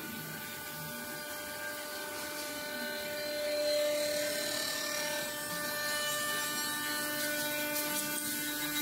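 ART1325R CNC wood router running a rotary-axis carving job on a wooden cylinder: a steady whine of several tones over a hiss. It grows louder about three and a half seconds in.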